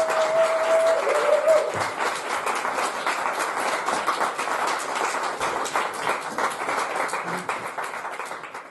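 Audience applauding: dense, steady clapping that slowly fades toward the end. In the first second or so a held tone at one pitch sounds over the clapping, then stops.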